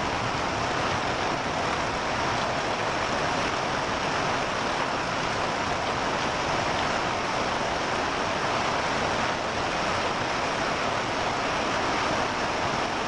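Hailstorm: heavy rain mixed with small hailstones pouring down in a steady, dense hiss.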